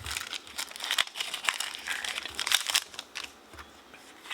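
Foil Pokémon booster pack wrapper crinkling as it is torn open and the cards are pulled out. Dense rustling and crackling for about three seconds, then only a few faint clicks.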